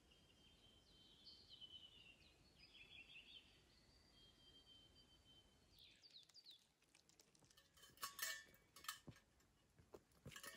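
Faint birdsong, high whistles and trills, in the first half. After an abrupt change in the background, a scattering of short sharp clicks and knocks follows, loudest in the second half.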